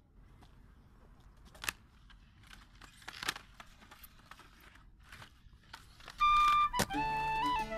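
Faint skateboard sounds on concrete: scattered clicks and knocks of the board and wheels, the sharpest about two and three seconds in. About six seconds in a loud held note sounds and music with steady sustained tones starts, louder than everything before it.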